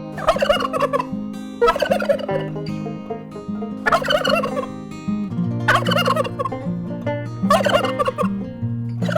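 Domestic fowl calling: about five short, fluttering calls roughly two seconds apart, over soft plucked-string background music.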